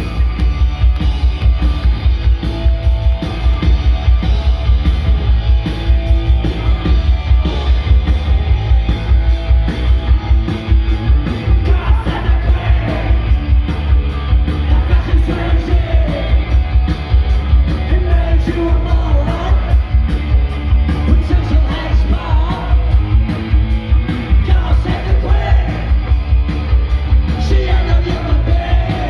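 Punk rock band playing live: pounding drums, distorted electric guitars and bass, with a shouted lead vocal that comes in about twelve seconds in.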